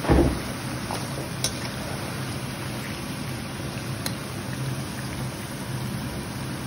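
Potato slices deep-frying in hot oil: a steady bubbling sizzle over a steady low hum, with a brief thump right at the start.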